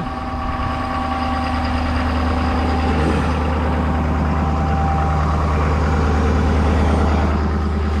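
Ford Super Duty pickup's engine idling steadily shortly after being started, a deep, even hum.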